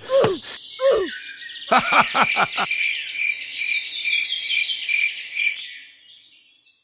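Rapid high chirping calls repeating about four times a second, fading out toward the end. A cluster of sharp knocks comes about two seconds in, and two short falling tones near the start.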